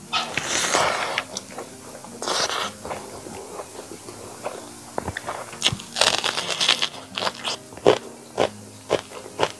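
Close-up mouth sounds of eating by hand: wet chewing of a mouthful of rice and chicken curry, then crisp crunching bites into a whole raw red onion. The sounds come in several short noisy bursts with clicks and smacks.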